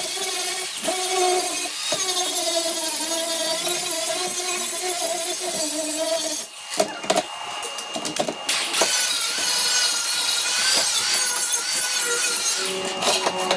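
Angle grinder grinding the edges of a plasma-cut steel plate: a steady motor whine over the hiss of the disc on metal. It drops away for about two seconds past the middle, then picks up again.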